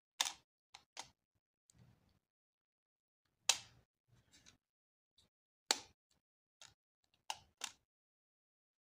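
Sharp plastic clicks and taps from the housing of a Samsung Galaxy A20 phone being handled and pressed together during reassembly: about six loud clicks at irregular intervals, with fainter taps between.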